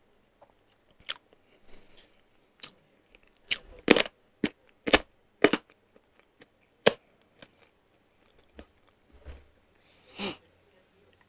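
Close-miked mouth sounds of a person eating: chewing with a run of sharp, wet lip smacks, densest about four to seven seconds in. Near the end a short sip of water from a glass.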